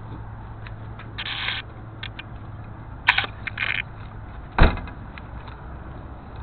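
Handling noise on a small keychain camera's microphone: rustling and scraping bursts over a low steady hum, with a loud thump about four and a half seconds in.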